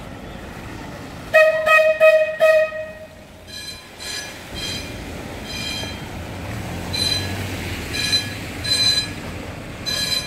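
A tram's horn and warning signal sounding at a car blocking the track: four short, loud horn blasts in quick succession about a second and a half in, then a higher-pitched warning tone sounding again and again in short bursts through the rest.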